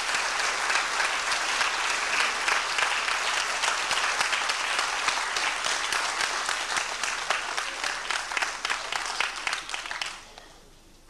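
Audience applauding, dense clapping that dies away about ten seconds in.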